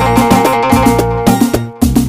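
Moroccan beldi dance music from a mobile arranger-keyboard app (ORG 2020): a plucked loutar-style lead over bass and percussion at about 109 beats a minute, with a brief break near the end.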